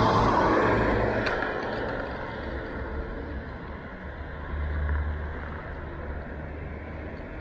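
City road traffic: a motor vehicle passes loudly at the start and fades away, followed by the low rumble of engines close by.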